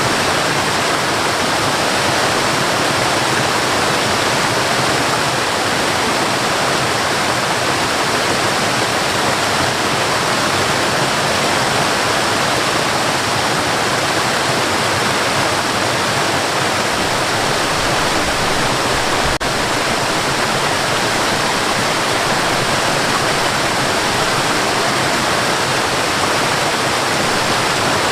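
Waterfall: water falling and splashing in a steady, unbroken rush, with a single faint tick about two-thirds of the way through.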